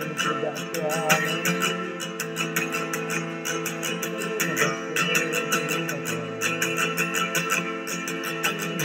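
Acoustic guitar music, quickly picked and strummed, with a close, steady run of plucked notes.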